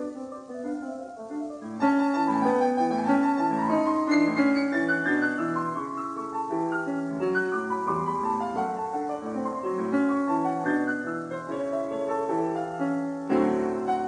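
Classical piano music, a flowing line of notes, louder from about two seconds in.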